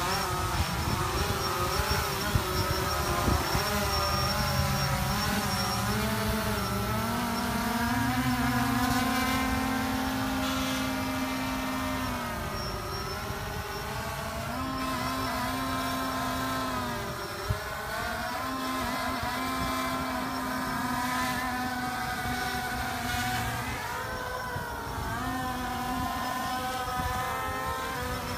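DJI Phantom quadcopter's propellers whining steadily, the pitch wavering up and down as the motors change speed while it hovers and pulls on a tether tied to an RC truck, trying to lift it.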